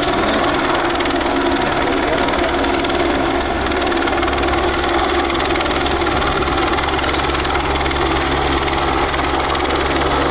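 Helicopter flying with a water bucket slung beneath it, its rotor and engine running steadily.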